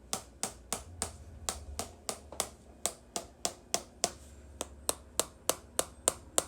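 Chiropractic adjusting instrument clicking in a steady rhythm, about three sharp clicks a second, with one short gap about four seconds in, as it taps along the pelvis and hip.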